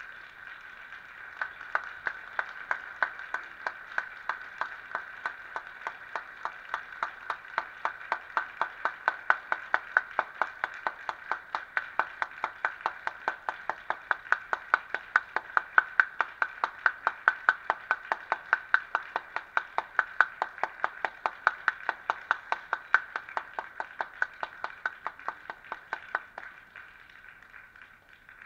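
Rapid, evenly spaced ticking, about three ticks a second, over a faint steady ringing tone. It grows louder after the first couple of seconds and stops shortly before the end.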